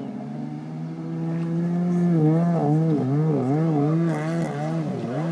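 Kawasaki 750 SX stand-up jet ski's two-stroke twin engine running out on the water, its note steady at first and rising slightly, then from about two seconds in wavering up and down in pitch about twice a second.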